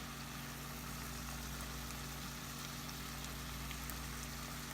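Chopped roast beef, sweet peppers and onions sizzling steadily in oil in a frying pan, with small crackles, over a steady low hum.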